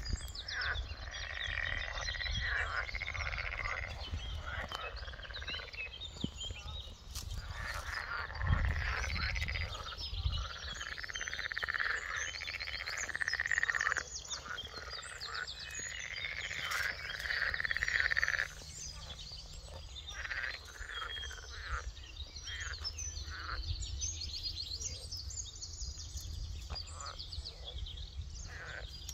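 A chorus of frogs croaking from a pond, in repeated calls a second or two long that keep overlapping and thin out after about eighteen seconds. Birds sing above them, over a low rumble.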